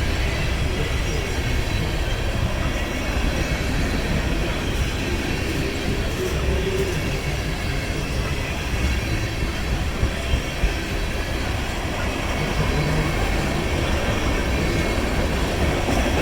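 Loaded freight cars of a passing train rolling by on the rails: a steady rumble and clatter of wheels, with three short knocks about ten seconds in.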